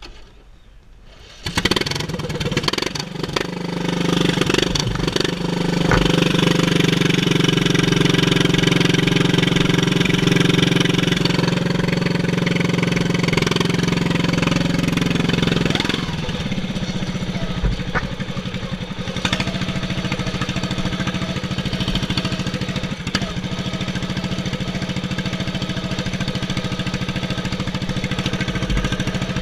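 A GP-class racing lawn mower's engine starts about a second and a half in. It climbs to a steady high-speed run and holds there for about ten seconds, then drops back to a lower, steady idle.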